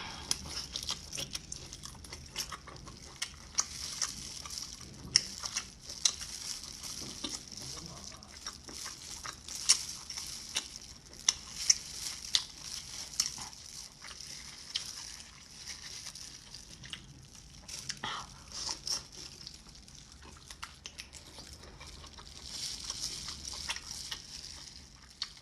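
Wet chewing and slurping of octopus dressed in chili oil, close to the microphone: a steady run of small squishing smacks and clicks.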